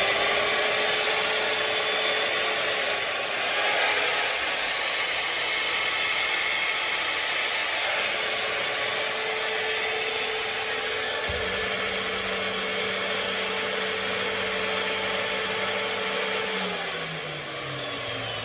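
Maktec electric tile cutter running with no load: a steady high-speed motor whine with a rushing noise. Near the end it is switched off and the whine falls in pitch as the motor winds down.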